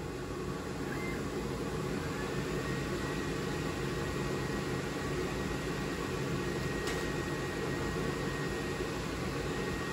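Steady fan noise and hum from a laser engraver's vent-hood exhaust fan, with an Ortur Laser Master 3 diode laser engraver running inside the enclosure. A faint, high, steady whine joins about a second in.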